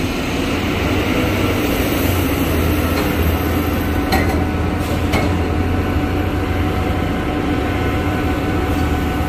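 Steady low drone of a cargo ship's machinery, with a couple of faint clicks about four and five seconds in.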